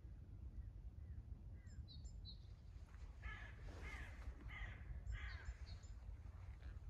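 A crow cawing in a run of harsh calls starting about three seconds in, with a few faint, high chirps from a small bird shortly before, over a steady low background rumble.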